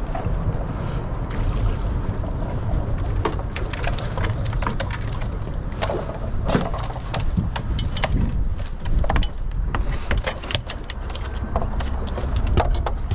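Wind rumbling steadily on the microphone, with many sharp clicks and knocks scattered through it.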